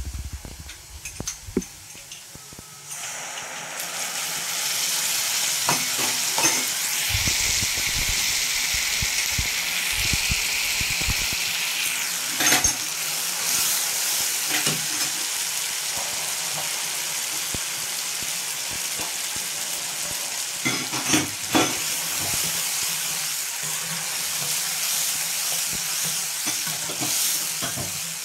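Tomato purée hitting hot mustard oil and browned onion paste in a kadhai, setting off a loud sizzle about three seconds in that then carries on steadily. A metal spatula stirs and scrapes the pan, with occasional sharp knocks against the metal.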